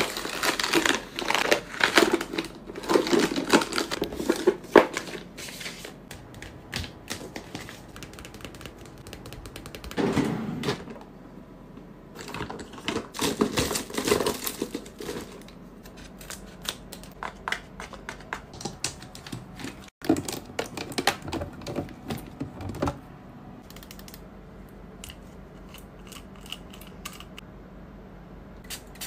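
Close-up handling sounds of skincare packaging and tools: foil sheet-mask sachets rustling and crinkling as they are flipped through, and small plastic items clicking and clattering in a tray. It comes as irregular runs of taps and rustles, busiest in the first few seconds.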